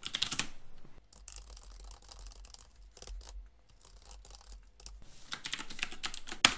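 Computer keyboard typing: irregular runs of keystroke clicks, with the loudest click near the end.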